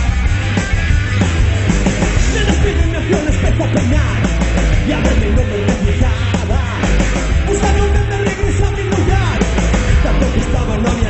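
Live rock band playing at full volume: drum kit, electric guitar and bass driving a steady beat.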